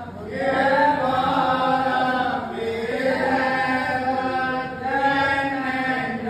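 A group of temple priests chanting a liturgical recitation in unison, in long sung phrases with brief pauses between them, about three phrases in all.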